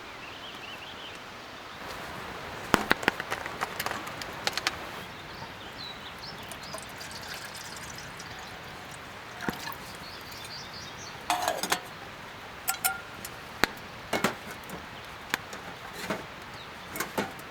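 Sharp clinks and knocks of camp gear being handled, in clusters about three seconds in and again from about eleven seconds on, with birds chirping faintly in the background.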